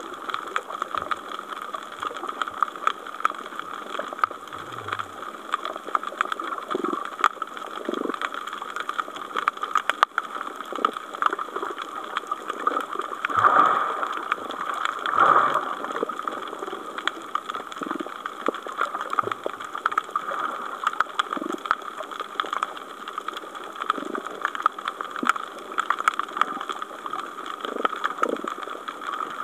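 Underwater ambience picked up by a camera in its housing: a steady hiss with constant fine crackling. There are two louder gurgling swells about halfway through.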